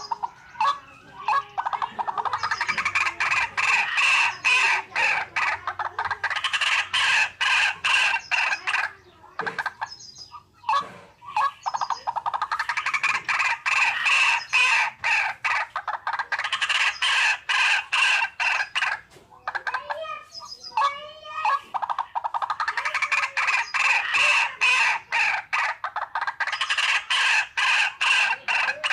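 Waterhen call played as a hunting lure: long runs of rapid, harsh clucking notes, several a second, repeated in bouts of a few seconds with short breaks between them. In one break, about two-thirds of the way through, there is a different, warbling call.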